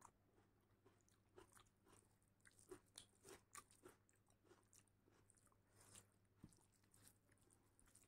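Faint, irregular wet clicks and smacks of eating rice and dal by hand: fingers squishing the rice and dal together on a steel plate, and a mouth chewing.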